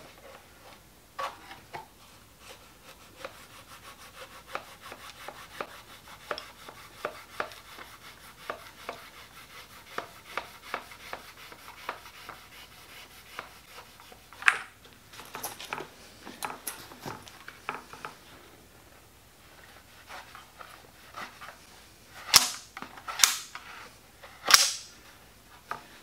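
Knife cutting a thin leather belt along a steel square on a wooden board: a steady run of short scraping strokes, about two a second, with a few louder, sharper strokes near the end.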